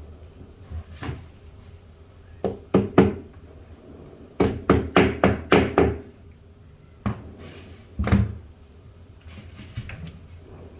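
Hammer knocking a glued wood filler piece into a stripped door-hinge screw hole: one knock, a quick group of three, a run of about six at roughly three a second, then two more, in a small room.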